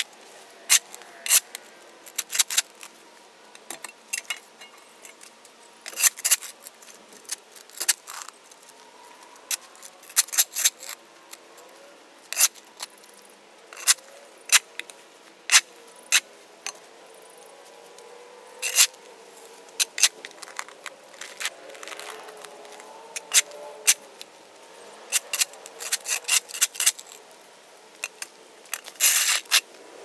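Metal shovel blade scraping and striking the hard court surface as it pries up caked dirt and grass, in short, irregular strokes with brief pauses between them.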